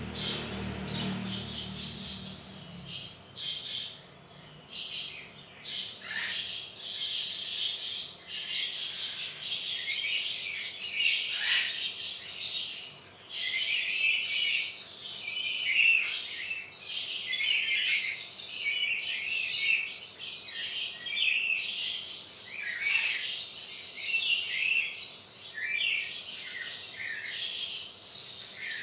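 Birds chirping and squawking almost without pause, a dense chatter of quick high calls. A low hum underneath fades out about three seconds in.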